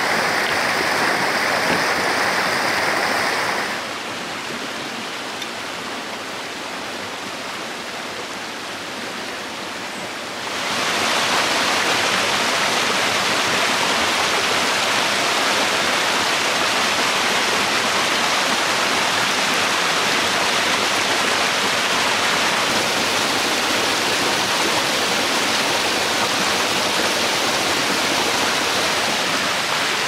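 Steady rush of river rapids pouring over rocks. The rush drops quieter about four seconds in and comes back fuller about ten seconds in.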